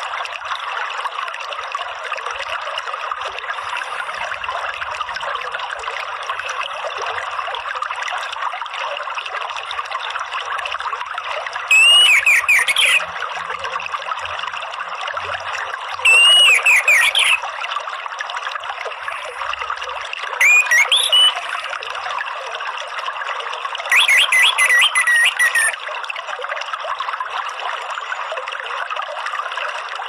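Orange-headed thrush singing four short, loud phrases of whistles and rapid notes, about every four seconds from about twelve seconds in. Behind it runs a steady rush of flowing water.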